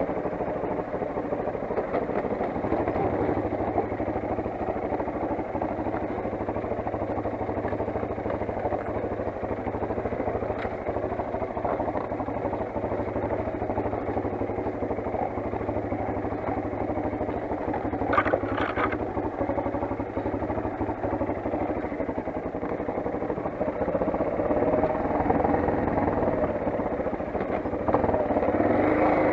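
Motoland XR 250 enduro motorcycle's single-cylinder four-stroke engine running steadily, with a short higher-pitched sound a little past halfway and louder near the end.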